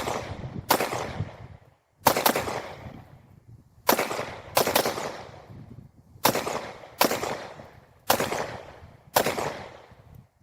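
Polymer80 Glock 23-pattern pistol in .40 S&W being fired, about nine shots at uneven intervals of roughly a second or less, each shot trailing off in a short echo. These are the pistol's first rounds, and it cycles through the string.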